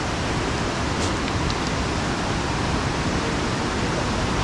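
Fast mountain river rushing over boulders: a steady, even wash of white-water noise.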